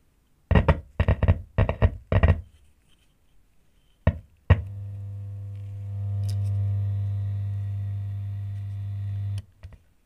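A homemade two-transistor amplifier driving a JBL subwoofer: four short buzzing pops from the speaker as the power clip is touched on, then two sharp clicks and a steady low hum from the speaker that swells slightly and cuts off suddenly near the end.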